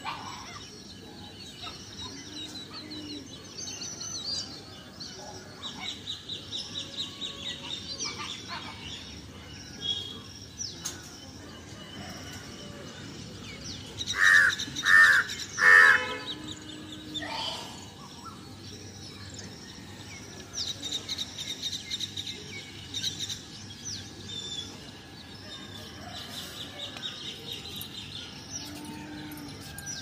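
Small birds chirping and trilling over and over, with three loud crow caws in quick succession about halfway through.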